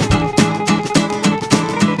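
Instrumental background music with a steady beat, about two notes a second.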